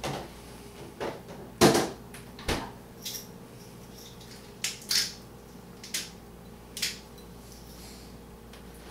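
Scattered short, sharp clicks and knocks, about eight of them, the loudest a little under two seconds in.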